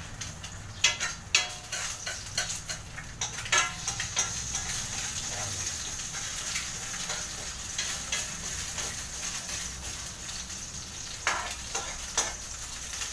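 An egg frying in hot oil in a frying pan, sizzling steadily, with a metal ladle clicking and scraping against the pan several times near the start and twice near the end.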